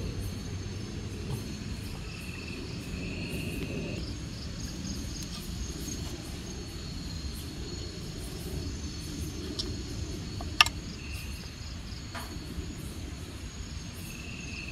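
Night insect chorus of crickets: steady high-pitched trilling, with a shorter call that comes three times, over a low rumbling noise. A single sharp knock sounds about ten and a half seconds in.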